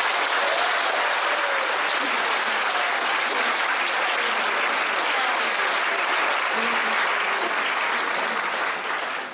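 Audience applauding steadily, with a few faint voices in the clapping; it dies away near the end.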